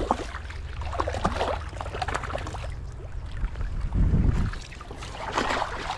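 A hooked rainbow trout splashing and thrashing at the water's surface as it is brought in to be netted, in irregular splashes over a low rumble, with a dull thump about four seconds in.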